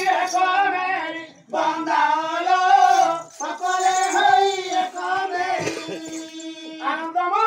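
A performer's voice singing a verse of a Sambalpuri pala in long, wavering held phrases, with short breaks for breath about one and a half and three seconds in.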